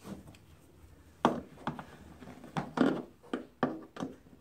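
Plastic panels of an Aerobin 400 composter being pried apart with a flathead screwdriver: a string of sharp knocks and clicks, about seven, starting about a second in, as the panel's latch is worked loose.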